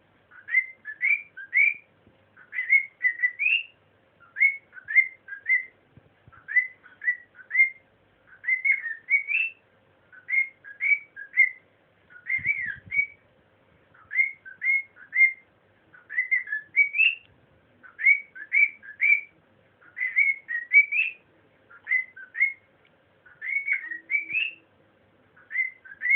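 Pet cockatiel whistling a learned tune: short phrases of three or four rising, upslurred notes, repeated over and over with brief pauses between them.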